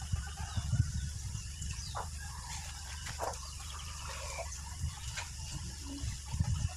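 Chickens clucking and birds chirping now and then over a steady low rumble.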